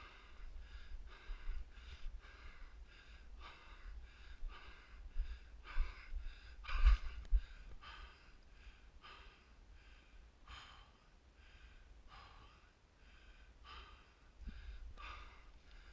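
A man panting hard and fast, completely out of breath, about two heavy breaths a second at first, easing and growing fainter after about halfway.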